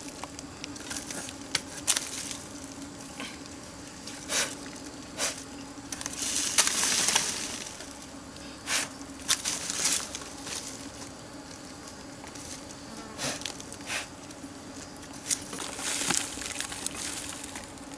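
Dry plant debris being pulled and cut away from the base of a stump by hand and with a knife: scattered snaps, crackles and rustles, louder about six seconds in and again near the end, over a steady low hum.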